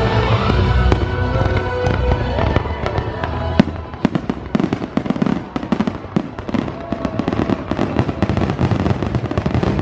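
Fireworks bursting over the show's music soundtrack; after a single loud crack a few seconds in, a rapid, dense volley of sharp bangs and crackles takes over.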